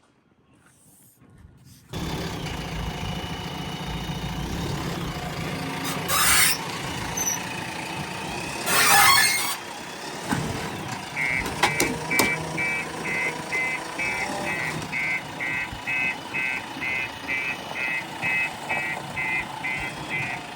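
Backhoe loader's diesel engine running steadily, with two short loud hisses in the first half. About halfway in, a reversing alarm starts beeping about twice a second.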